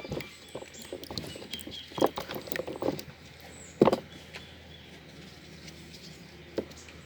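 Scattered small knocks, clicks and rustles of fresh turmeric roots being handled, with one louder knock about four seconds in.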